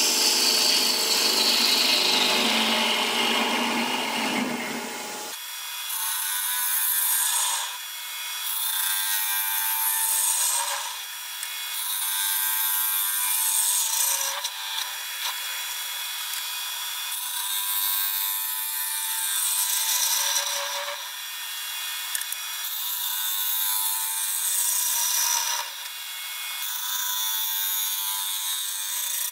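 A 5/8 bowl gouge taking rough hollowing cuts inside a wooden bowl spinning on a wood lathe: a series of scraping cutting passes, about one every two seconds. About five seconds in, the deeper part of the sound drops away abruptly.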